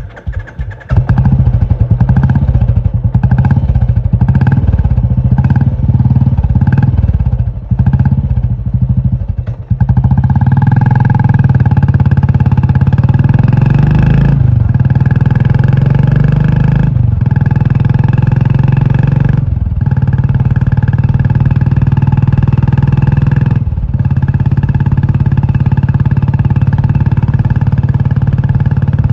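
Royal Enfield Classic 350's single-cylinder engine through a loud aftermarket Indore exhaust, coming in about a second in. For several seconds it runs in uneven throttle blips, then it settles into a steady, deep, loud run. Four times it drops away briefly and picks up again.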